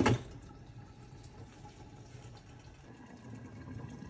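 A short metallic clatter from the stainless-steel pan lid at the start, then pork-and-chicken stew simmering under the closed lid, a faint, steady bubbling hiss.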